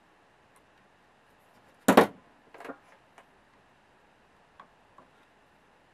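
Workbench handling noises while soldering wires onto a circuit board: one sharp knock about two seconds in, followed by a softer scrape and a few faint clicks.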